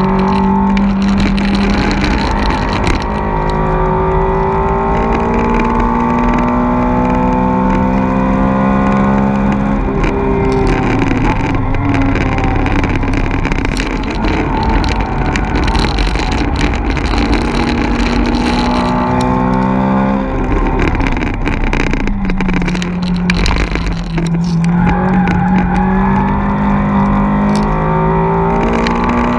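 Four-cylinder hot hatch engine heard from inside the cabin on track, pulling steadily and rising in pitch, with the revs dropping twice, about a third and two thirds of the way through.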